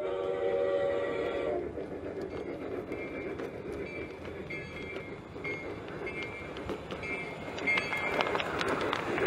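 G-scale model C-19 steam locomotive with a passenger train: a chime whistle blows for about a second and a half, then a bell rings steadily at a regular pace. Under it the train runs on the track, with clicking and rumble growing louder as it draws up and passes near the end.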